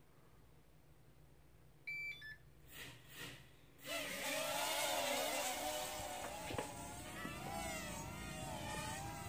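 A few short electronic beeps about two seconds in, then from about four seconds in the Jun Cheng mini quadcopter's small motors whine, the pitch wavering up and down with the throttle.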